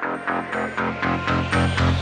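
Background electronic dance music with a steady beat of about four pulses a second and sustained synth notes, building in level near the end.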